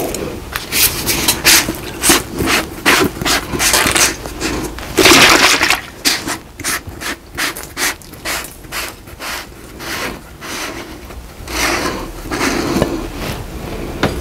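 Handling a plastic jar of slip: scrapes, rubs and a run of quick clicks and knocks as the jar is picked up and its lid unscrewed, with one louder scrape about five seconds in.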